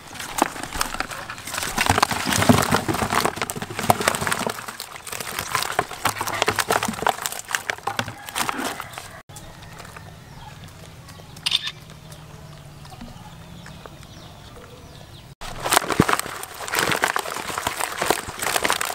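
Wet fish sliding, slapping and knocking against plastic as they are tipped from a bucket into a basin and handled, a dense clatter of small wet clicks. It comes in two spells, with a quieter stretch of several seconds between them.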